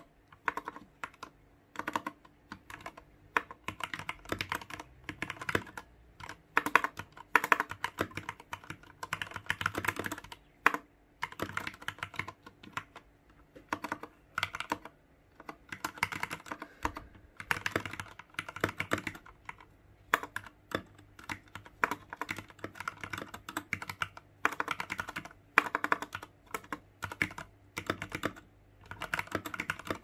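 Typing on an iKBC Poker 2 60% mechanical keyboard with Cherry MX Red switches and PBT keycaps: rapid runs of key clicks in bursts, with short pauses between words and lines.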